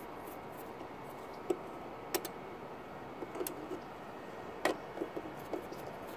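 Scattered light clicks and taps from handling the metal case of a Behringer iNuke 6000 power amplifier, over a steady background hiss. There is a quick double click about a third of the way through and the sharpest click about three-quarters through.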